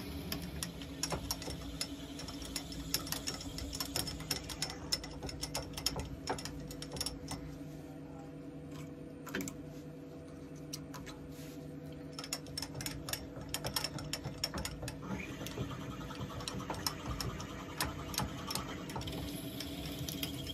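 Wood lathe running steadily while a 16 mm drill bit, fed from a Jacob's chuck in the tailstock, bores into the spinning Blackbutt blank, giving irregular crackling clicks as it cuts. The clicks thin out for a few seconds in the middle, while the bit is withdrawn and cleared of chips, then resume.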